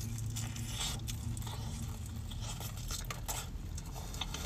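A person biting into and chewing a fried birria taco close to the microphone: scattered short crackles and tearing bites of the crisp shell. A steady low hum of the car's interior runs underneath.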